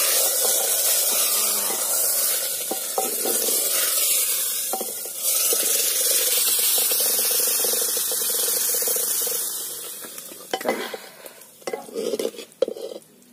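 Hot tempering of oil, onion and green chilli sizzling as the steel ladle it was fried in is plunged into a pot of spinach dal. The sizzle fades after about nine seconds, and near the end the ladle knocks against the pot a few times while stirring.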